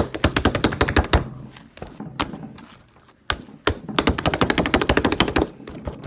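An open hand rapidly slapping a mound of slime on a wooden tabletop: two fast runs of wet smacks, with a short pause of about a second between them.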